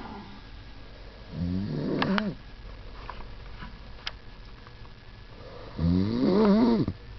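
A person snoring: two loud snores about four seconds apart, each lasting about a second, with a wavering tone that rises and then drops off at the end.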